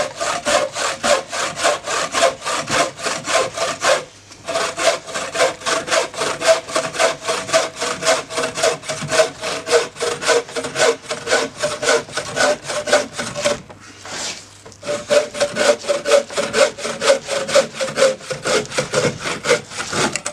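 Homemade wooden-frame bucksaw cutting a log in quick back-and-forth strokes, the blade rasping through the wood with a steady ringing note under it. The strokes break off briefly about four seconds in and again for a second or so around fourteen seconds in.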